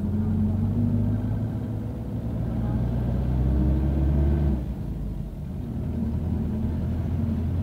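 Bus engine running under way, heard from inside the cabin: a steady low hum that grows louder from about two seconds in, then falls away suddenly about four and a half seconds in.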